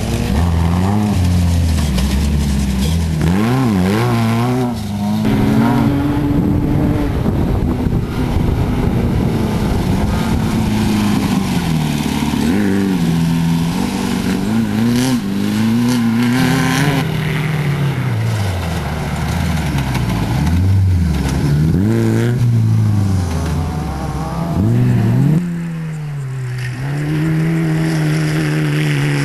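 Off-road racing buggy engines revving hard, their pitch climbing and dropping again and again as the throttle is worked. The sound dips briefly about 25 seconds in, then picks up again.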